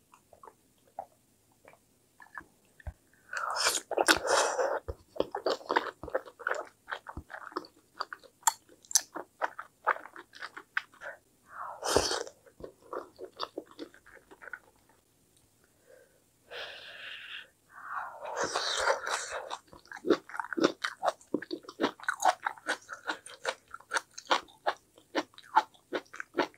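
Close-miked chewing and mouth sounds of a person eating mala tteokbokki: wet smacks and bites, in thicker spells about four seconds in, at twelve seconds and around eighteen seconds, with a short quiet stretch between.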